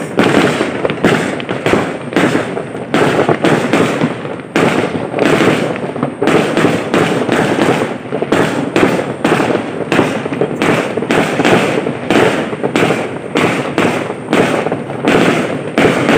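A dense, continuous barrage of New Year fireworks and firecrackers going off, many bangs and crackles overlapping with hardly a break.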